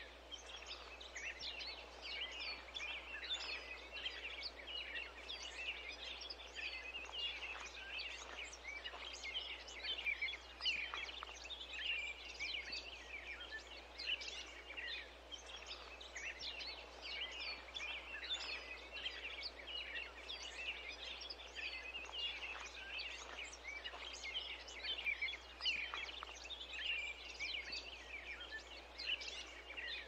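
A dense chorus of many small songbirds chirping and singing at once, a continuous stream of quick high chirps, over a steady low hum.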